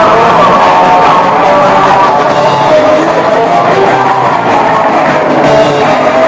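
Black metal band playing live and loud: electric guitar, bass and drums in a dense, continuous wall of sound with held guitar notes on top.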